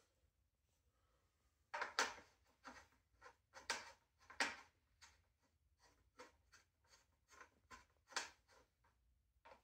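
Irregular clicks, scrapes and light rattles as the handlebar of an Eskuta KS350 electric scooter is worked onto the top of its stem, the loudest about two seconds in.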